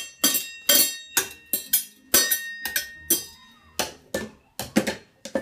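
A toddler banging a wooden spoon and a wire whisk on enamel pots and dishes in a dishwasher rack: irregular strikes, about two or three a second, some leaving a metallic ring.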